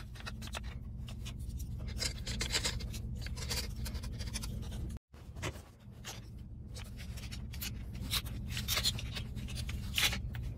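A hex driver tightening small screws into a metal axle and diff casing: a dense run of small irregular clicks and scrapes as the bit turns in the screw heads.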